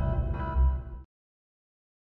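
Closing notes of a short logo jingle: sustained tones over deep bass, with one more bass hit about half a second in, cutting off suddenly about a second in.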